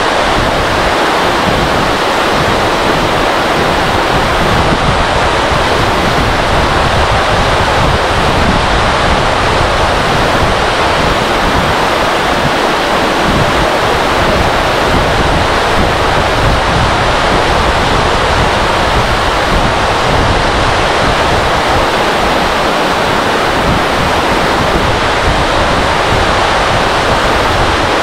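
Falling water of a 120-metre waterfall, loud and unbroken, with wind buffeting the microphone.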